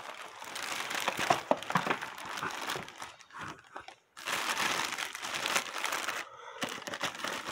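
A clear plastic bag crinkling and rustling as it is handled, with a brief pause about four seconds in.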